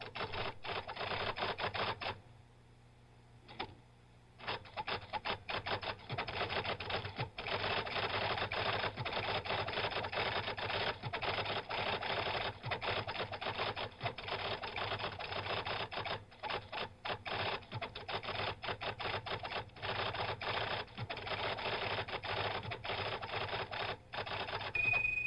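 IBM Correcting Selectric electric typewriter typing rapidly, its typeball striking the paper in a fast stream of clacks. A burst of typing stops about two seconds in, and after a pause of about two seconds, broken by one click, the typing resumes and runs on almost without a break. A short steady high tone sounds at the very end.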